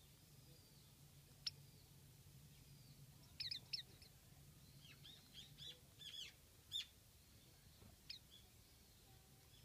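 Japanese white-eyes giving short, high, thin chirps: a single call about one and a half seconds in, a quick run of several calls in the middle, and one more near the end.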